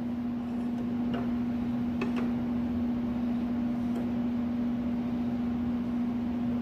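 Steady mechanical hum on one low tone, with a few faint light clicks about one, two and four seconds in.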